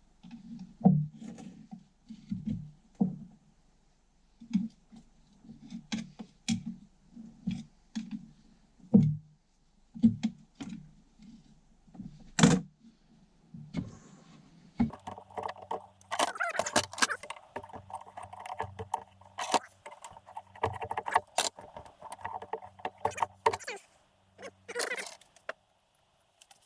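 Metal tools and engine parts clinking and knocking on a workbench in separate irregular strikes. About halfway through a steady hum starts, and the clattering goes on over it.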